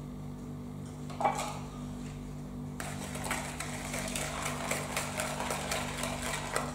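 Wire hand whisk beating eggs and sugar in a plastic mixing bowl, starting about three seconds in as a fast, steady clatter of the wires against the bowl. A single short knock about a second in.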